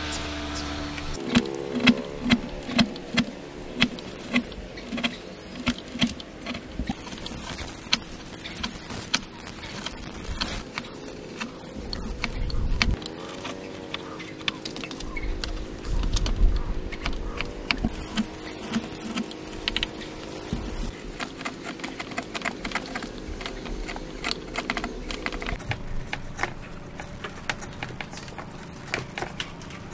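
Steel wood chisel pushed by hand through a mortise, paring and chopping wood fibres: irregular crisp clicks and scrapes, with a quicker run of sharper strokes a couple of seconds in. A low steady hum runs underneath.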